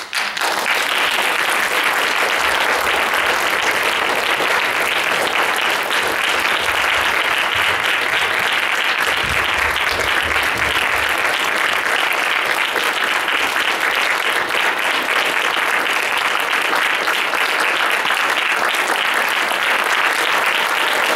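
Audience applauding, breaking out all at once and then going on steadily.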